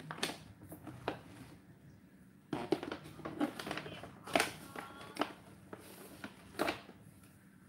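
Plastic snack packet crinkling and crackling in handling: irregular sharp crackles, thickest in the middle of the stretch, with a brief squeaky note just after.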